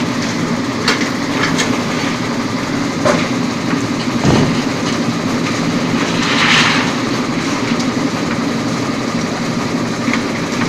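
Engine-driven concrete mixer with lift running: a steady engine drone with occasional sharp clanks and knocks, and a brief hissing swell about six seconds in.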